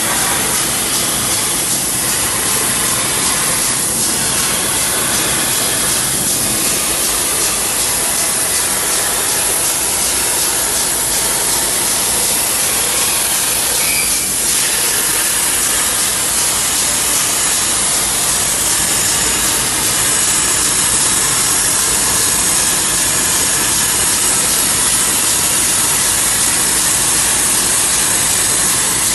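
Hypertherm XPR300 plasma torch cutting metal on a CNC table: a loud, steady hiss.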